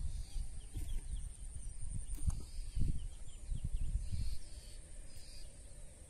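Rural outdoor ambience: a steady high insect drone with short chirps repeating every second or so, over an uneven low rumble that fades toward the end.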